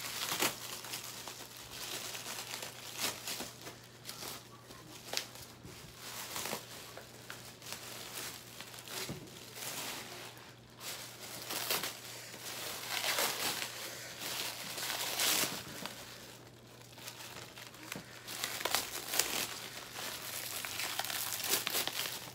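Clear plastic packaging crinkling and rustling as it is handled, louder and softer by turns.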